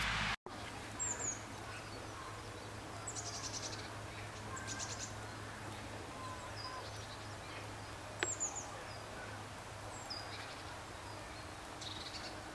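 Small birds chirping and trilling in short, high calls, some falling in pitch, scattered throughout, over a steady low hum. A single sharp click comes about eight seconds in.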